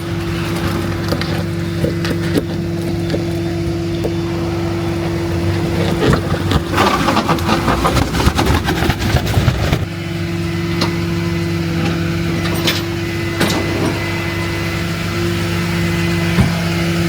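Car running, heard from inside the cabin: a steady engine hum throughout. About six seconds in a rougher rumble with many knocks and rattles sets in for a few seconds and stops sharply.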